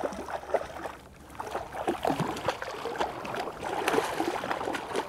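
Shallow river water sloshing and splashing in irregular bursts as someone wades through it. There is a brief lull about a second in.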